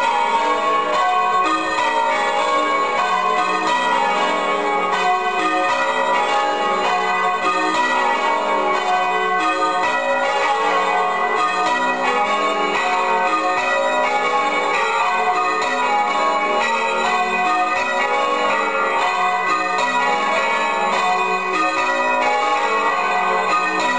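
A ring of six church bells being rung in changes, the strikes following one another in a steady, unbroken stream. The uploader finds the ring fairly nice, though the middle bells could use slight retuning.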